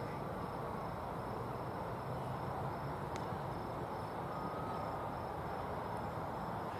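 Steady outdoor background noise with crickets chirping faintly in an even, repeating pulse. A single faint click comes about three seconds in.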